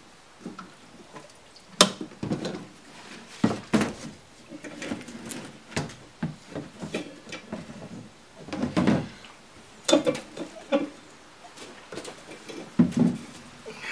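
Scattered clunks, knocks and rustles of hands working in a car's engine bay: a plastic gas can being handled and set down, and a rubber intake hose being worked on. The sharpest knocks come about two, three and a half, ten and thirteen seconds in.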